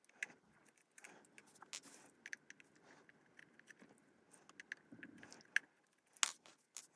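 Precision screwdriver turning the small Torx T6 screws out of a HomePod mini's logic board: faint scattered clicks and scrapes of the bit in the screw heads and of fingers on the plastic housing, with a sharper click about six seconds in.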